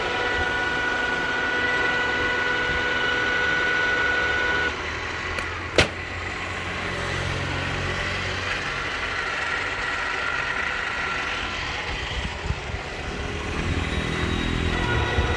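TOS FGU 32 horizontal milling machine running, with a steady multi-tone gear whine. About five seconds in the whine drops away. Soon after, a single sharp click sounds, and then a lower, rougher running noise continues until the whine returns near the end.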